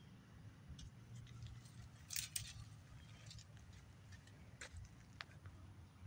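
Faint rustling and a few small clicks, as from handling a plant or a phone, with the loudest cluster about two seconds in, over a low, quiet background.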